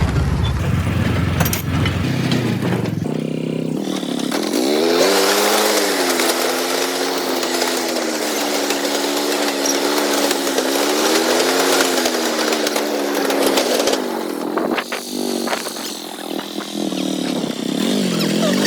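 A small engine running: its pitch climbs about four seconds in and holds with a slight waver, falls away about fourteen seconds in, then climbs again near the end.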